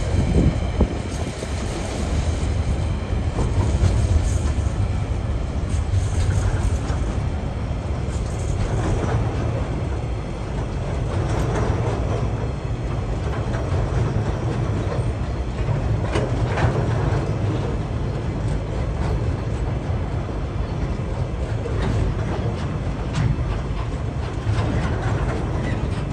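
Freight wagons of a passing train rolling by close: a steady rumble of steel wheels on the rails, with scattered sharp clicks and clacks from the wheels and running gear.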